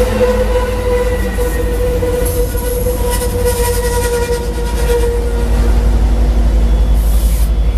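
Bi-level passenger cars rolling past with a low rumble and a steady ringing wheel squeal. About five seconds in, the trailing diesel locomotive passes and the rumble grows louder with a rhythmic throb.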